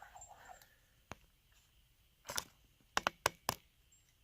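A handful of light, sharp clicks and taps of small hard objects being handled: one about a second in, another a little past two seconds, then three in quick succession near the end.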